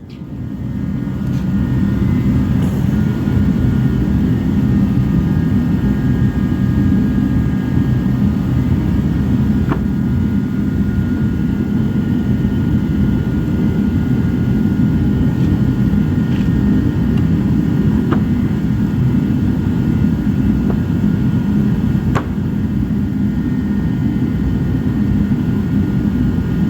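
A machine running steadily with a loud low hum and a few faint steady whining tones above it, with a few faint clicks along the way.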